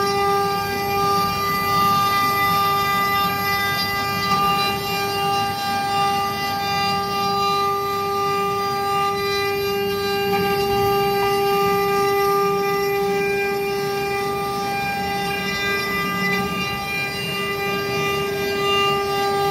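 CNC router spindle running at speed with a steady high whine, carving a wooden baluster turning on the machine's rotary axis, with a rough, uneven cutting noise underneath.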